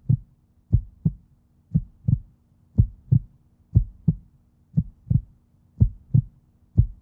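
Heartbeat sound effect: a slow, steady lub-dub, about one double beat a second, over a faint low drone.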